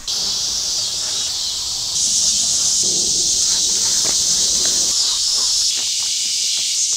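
Steady, high-pitched chorus of insects droning in the surrounding trees, swelling slightly about two seconds in.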